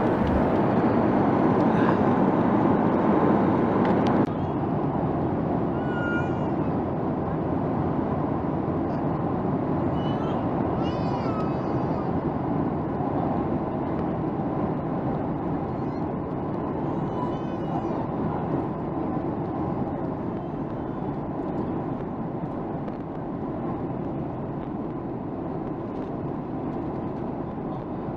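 Steady rushing cabin noise of an Oman Air jet airliner in flight, the engines and airflow heard from inside the cabin. It is louder for about four seconds, then drops a step and eases slowly. A few faint high-pitched squeaks come through in the middle.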